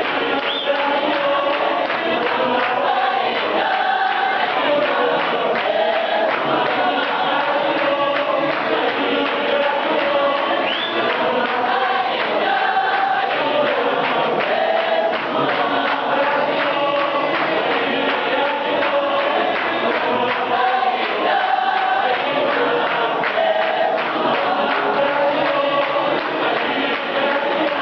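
Large gospel choir singing in harmony, with clapping and tapping in rhythm in the clap-and-tap style.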